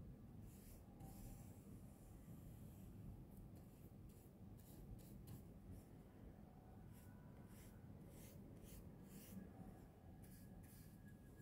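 Faint, scratchy strokes of a hard-bristled oil-paint brush dabbing and dragging across oil paper. They come in several short runs of strokes.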